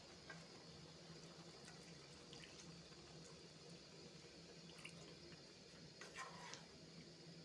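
Water pouring faintly from a plastic bottle into a pan of simmering curry, then a metal spoon stirring the pan, with a couple of light knocks about six seconds in.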